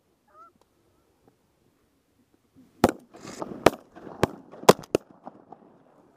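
A rapid volley of shotgun blasts from several hunters' shotguns: about six shots in two seconds, starting about three seconds in.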